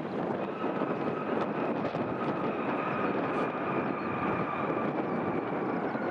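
Boeing 737-300 airliner's CFM56 jet engines rolling out after touchdown: a steady rush with a faint whine that sinks slightly in pitch.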